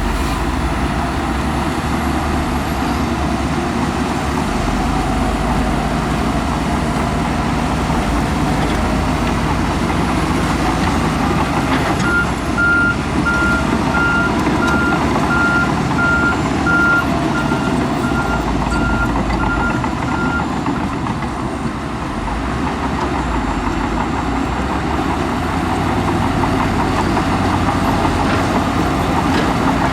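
Heavy diesel earthmoving machinery running steadily under load. Partway through, a reversing alarm beeps in a regular series for about eight seconds.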